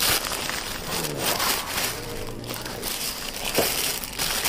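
Clear plastic wrapping on a new fishing rod crinkling and crackling as it is handled.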